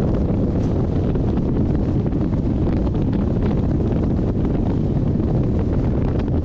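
Strong wind blowing on the microphone held out of a moving train's open door, over the steady running noise of the train. The sound is loud and unbroken, with most of its weight in the low end.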